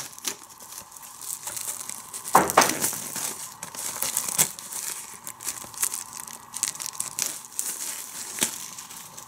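Plastic shrink wrap being torn and peeled off a DVD box set, crinkling and crackling throughout, with louder sharp snaps about two and a half and four and a half seconds in.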